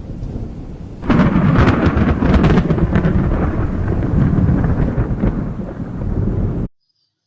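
Thunder: a sudden loud clap about a second in, followed by a long rolling rumble that cuts off abruptly near the end.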